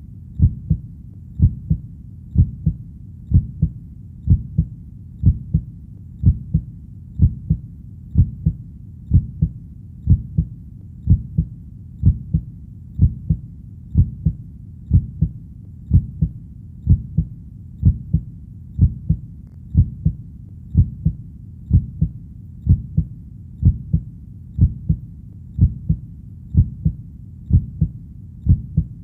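Heartbeat: low, paired lub-dub thumps repeating at a steady pace of about one beat a second.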